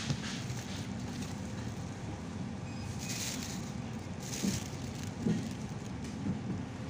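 Steady supermarket background hum and murmur, with two short rustles about three and four and a half seconds in and a few light knocks as sweet potatoes are handled.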